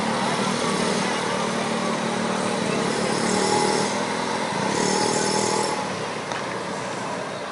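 Small motorcycles and a scooter running as they pass along the street, a steady engine hum over traffic noise that eases off in the second half.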